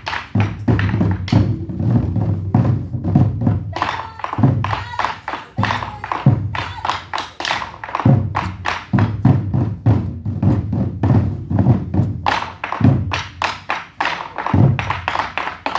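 Korean buk drum ensemble playing a fast, dense rhythm of heavy strikes.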